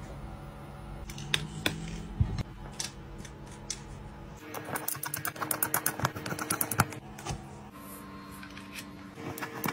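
Light, quick tapping and clicking from hands and fingernails working on an iPad's glass and frame during a screen repair, scattered at first, then a fast run of taps from about halfway through. Background music with held chords plays under it.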